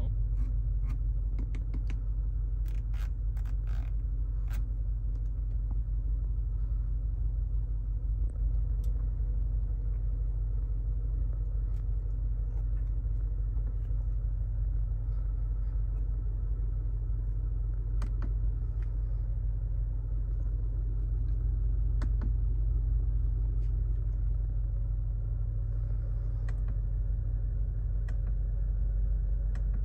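The 2023 BMW M5 Competition with its twin-turbo 4.4-litre V8 running steadily, a constant low rumble with no revving. Several sharp clicks sound in the first few seconds, and a couple more come later.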